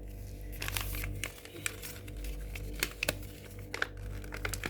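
Sheet of paper being handled and folded, crinkling and rustling in a string of short crackles as it is creased.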